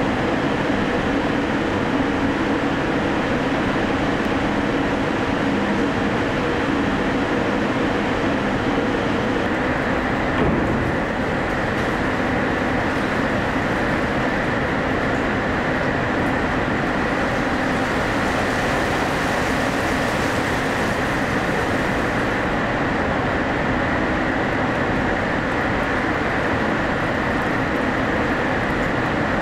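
Steady car-factory machinery noise: a dense, continuous rumble and hiss with faint steady hum tones. The mix of tones shifts about ten seconds in.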